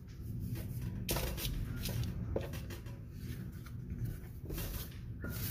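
Soft rustling and a few light knocks of hands handling ciabatta dough as it is lifted from a floured worktop and set on a paper-lined baking tray.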